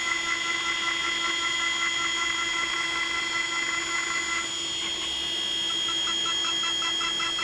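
Mazak Integrex mill-turn machine's spindle driving a quarter-inch four-flute carbide end mill, helically milling screw counterbores in 4340 steel. It gives a steady whine of several tones. The tone changes about four and a half seconds in, and a pulsing tone joins near the end.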